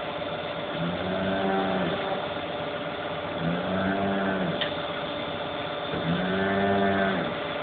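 A motor running with a steady low hum, and a pitched whine that rises and falls about every two and a half to three seconds.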